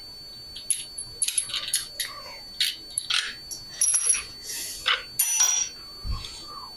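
Small metal parts and tools clinking and clattering against one another, a quick irregular series of sharp clinks, some with a short high ring, followed by one dull thud near the end.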